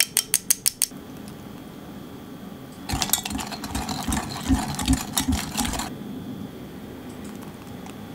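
A quick run of about seven sharp clicks at the start, then a wire whisk beating egg batter in a glass mixing bowl: a fast clatter of metal wires against glass for about three seconds.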